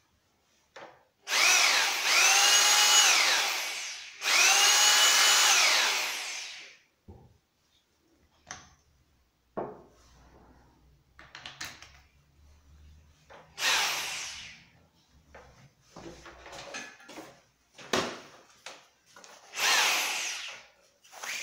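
A Bosch GBH 2-28F corded rotary hammer's electric motor runs twice for about two and a half seconds each: it winds up, holds speed and winds down. Two briefer bursts come later, with clicks and knocks from handling the tool and its chuck in between.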